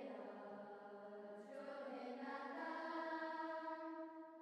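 A group of voices singing a slow hymn or chanted prayer in long held notes, faint.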